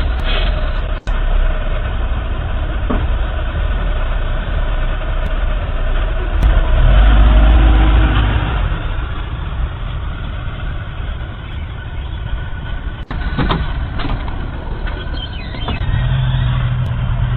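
A motor vehicle's engine running, a steady low rumble that grows louder around the middle and then settles, heard through a doorbell camera's narrow-band microphone. The sound cuts out briefly twice.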